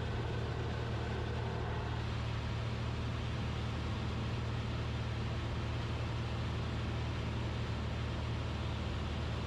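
Cessna 172RG's four-cylinder Lycoming engine and propeller droning steadily in level flight, heard from the cockpit, under an even rushing hiss of airflow.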